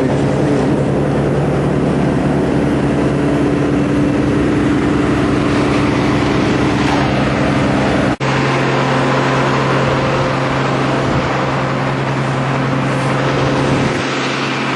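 An engine running steadily with an even hum. It cuts out for an instant about eight seconds in.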